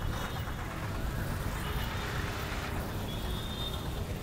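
Traffic noise of vehicle engines running around a bus station, a steady hum with an uneven low rumble underneath.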